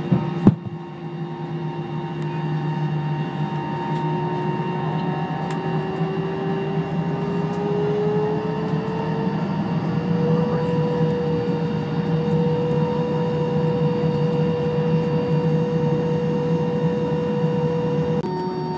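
Airbus A321 engine noise heard inside the cabin while taxiing: a steady low hum with a whine that rises in pitch over several seconds and then holds steady as thrust is added. A sharp click about half a second in.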